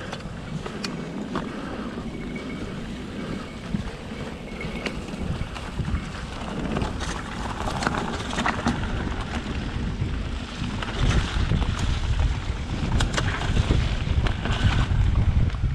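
Wind buffeting the microphone of a camera riding along on an e-mountain bike, over tyre rumble on the trail and scattered clicks and rattles from the bike. It grows louder in the second half.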